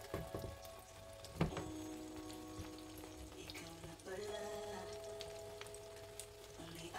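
Egg omelette sizzling and crackling softly in a non-stick frying pan, with one sharp knock about one and a half seconds in.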